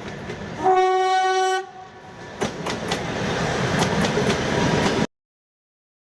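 A train horn sounds once for about a second, then a train's rumble and clickety-clack of wheels over rail joints. The sound cuts off abruptly about five seconds in.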